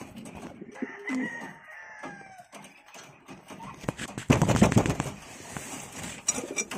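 A rooster crowing: one long call falling in pitch, about a second in. A loud rustling burst follows a little after four seconds.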